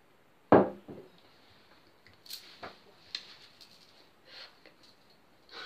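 A short, loud burst of a woman's voice about half a second in, followed by faint breaths and small mouth clicks.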